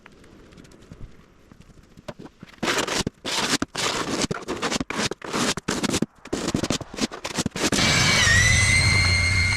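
An EGO 28-inch battery snowblower. Its motor is quiet at first, then about five seconds of irregular crackling and crunching bursts are heard. Near the end the motor starts up and runs steadily with a low hum and a high, steady squeak, a fault the owner says is common on these machines.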